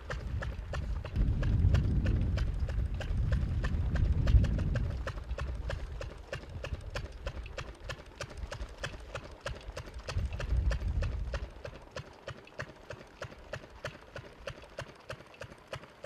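Tractor front loader's engine running, with a fast, even ticking throughout. The engine swells louder twice, from about a second in until about five seconds and again around ten seconds in, as the bucket of salt is raised over the dump truck.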